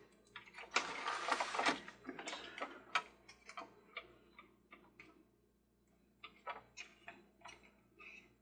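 Plastic parts of a Mr. Christmas Ferris wheel clicking and knocking as they are handled and pushed together, with a denser scraping rustle about a second in.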